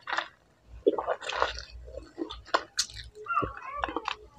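Close-up chewing of juicy fresh fruit: irregular wet smacks, squishes and small crunches of the mouth working on the fruit.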